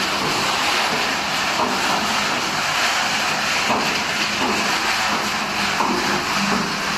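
Corn curl production line machinery running with a steady, dense mechanical noise.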